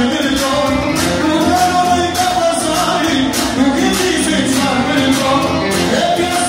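Albanian wedding dance music with singing over a steady beat.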